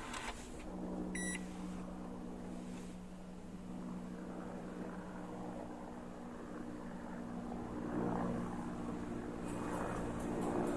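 Toyota Camry (AVV50) hybrid running with a steady low hum. A short electronic beep sounds about a second in, and light clicks come near the end.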